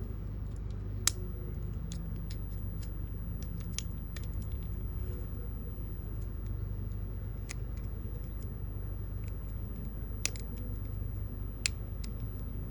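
Scattered sharp clicks and taps of small plastic and metal parts as a bracket is worked off a car's in-tank fuel pump assembly by hand, over a steady low hum. The loudest clicks come about a second in and twice near the end.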